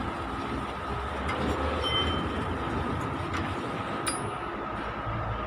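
Steady mechanical drone from unseen machinery, with a few light metallic clicks as a wrench works the fuel injection line fittings of a Kubota D950 diesel.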